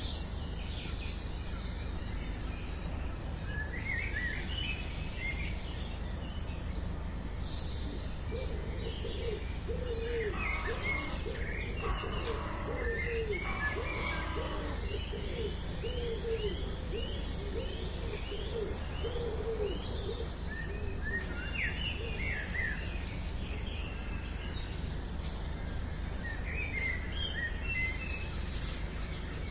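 Wild birds calling: scattered short chirps and slurred high notes, with a run of lower, repeated curved calls through the middle, over a steady low rumble.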